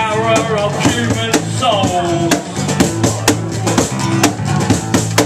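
Live acoustic band playing: strummed acoustic guitar, bass and a steady cajon beat, with a pitched line gliding downward twice over the top.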